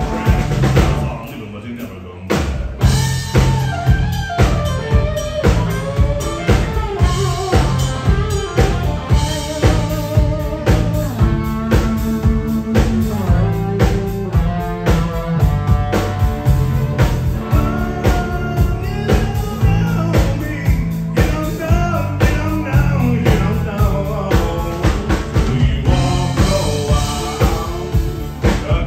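Live country band playing with drum kit, guitars and fiddle on a steady beat. About a second in it drops to a brief quieter break, then the full band comes back in near three seconds.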